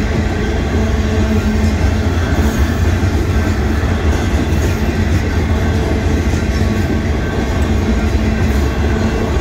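Freight train boxcars rolling past, a steady noise of steel wheels running on the rails.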